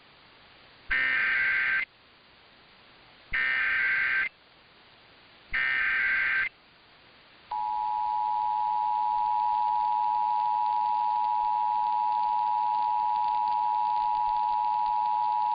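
Emergency Alert System SAME header: three bursts of warbling data tones, each about a second long and about two seconds apart. About a second after the last burst the EAS two-tone attention signal (853 and 960 Hz together) starts and holds steady for over eight seconds, announcing a test message.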